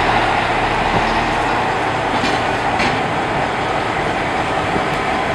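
Steady mechanical noise of a MAZ crane-manipulator truck's diesel engine running, the kind of running that drives the crane's hydraulics during a lift.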